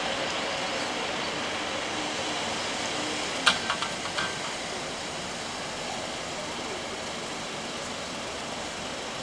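Hino Rainbow II city bus's diesel engine fading steadily as the bus pulls away from the stop. A sharp click about three and a half seconds in, followed by a few lighter clicks.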